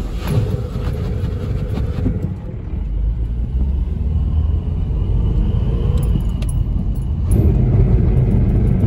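Low, steady road and tyre rumble with engine noise, heard inside the cabin of a Subaru Outback 4WD driving on new snow tyres over a snowy road. It grows louder about seven seconds in.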